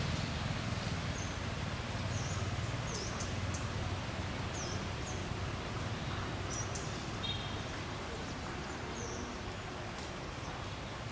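Outdoor ambience: a steady low rumble under short, high bird chirps that come every second or so, with a brief pitched call about seven seconds in.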